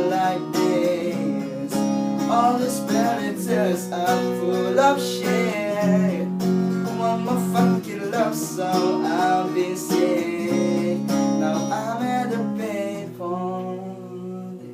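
Acoustic guitar strumming under a singing voice that glides through sustained notes; about thirteen seconds in the voice drops away and the guitar carries on more quietly.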